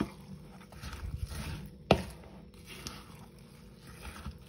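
A metal spoon stirring sliced apples into thick batter in a bowl: soft wet squelching and scraping, with a sharp clink of the spoon against the bowl about two seconds in.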